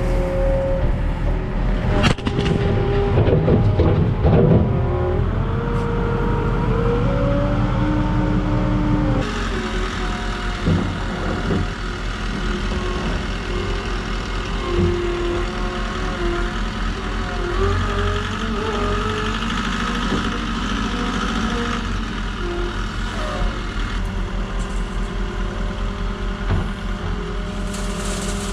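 Ford Super Duty pickup truck, fitted with a muffler, driving with its engine running steadily and its pitch rising and falling with speed. There is a sharp knock about two seconds in.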